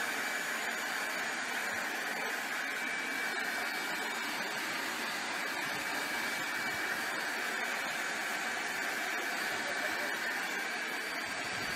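Handheld blower running steadily: a constant rush of air with a thin, steady whine over it.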